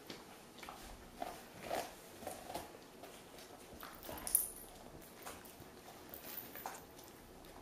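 An Airedale terrier eats crumbs off a foam floor mat. Faint, irregular chewing and crunching sounds come in short separate bursts, and the loudest comes about four seconds in.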